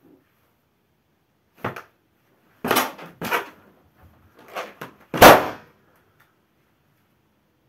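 A large latex balloon being stomped and squashed under bare feet, giving several shorter sharp noises, then bursting with one loud bang about five seconds in, the loudest sound of all.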